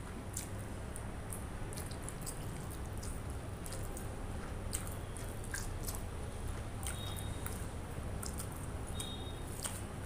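Close-miked chewing of rice and chicken curry, with many short wet mouth clicks and smacks, over a steady low hum.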